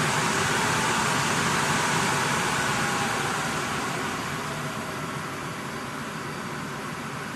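Rack-mount server cooling fans running with a loud, steady rush. About three seconds in they wind down to a lower, steadier speed.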